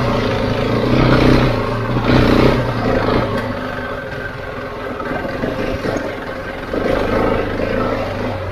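Husqvarna 701's single-cylinder four-stroke engine running under load while being ridden off-road. It pulls hard for the first few seconds, eases off about three seconds in, then picks up again near the end.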